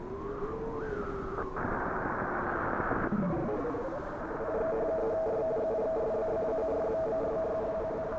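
Distorted, band-limited broadcast audio. A wavering tone and a short rising glide give way to a burst of static about a second and a half in, then a falling sweep. From about four and a half seconds in, a steady two-note electronic tone with a fluttering, stuttering texture sounds.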